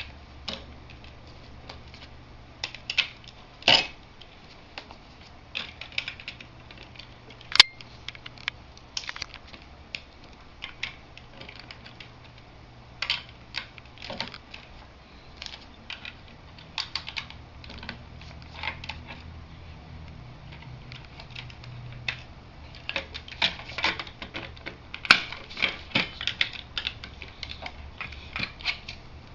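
Small plastic LEGO bricks clicking and clattering as they are handled and pressed together, in irregular runs of sharp clicks that come thickest near the end.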